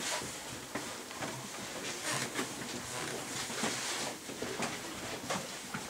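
Footsteps and shuffling of a small group of people on a wooden floor: scattered light knocks and clicks over a soft hiss.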